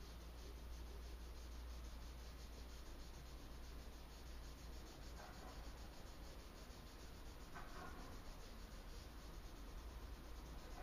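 Pencil shading on sketch-pad paper: faint, fast, even back-and-forth scratching strokes, over a low steady hum.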